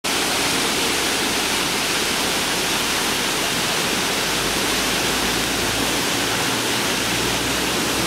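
Steady rush of a tall, narrow waterfall plunging down a cliff, an even hiss of falling water that comes in suddenly and holds without change.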